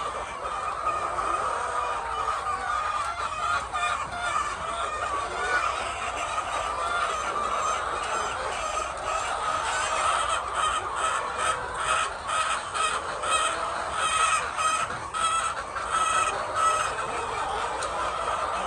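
A large flock of laying hens clucking and calling continuously, many birds at once, with short sharp clucks standing out more thickly in the second half.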